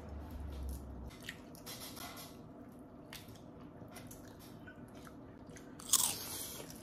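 Soft, wet eating sounds of a Cajun seafood boil: faint squishing and small clicks as boiled seafood is handled and dipped in sauce, then a louder bite about six seconds in.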